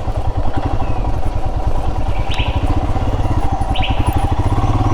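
Royal Enfield Himalayan's single-cylinder engine running at a steady idle, an even rapid low thudding.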